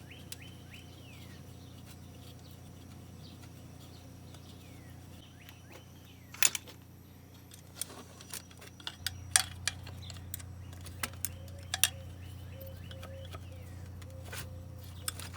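Sharp metal clinks and taps of hand tools on small engine parts, starting about six seconds in with one loud clink, then scattered through the rest. Faint bird chirps sound in the first couple of seconds over a steady low hum.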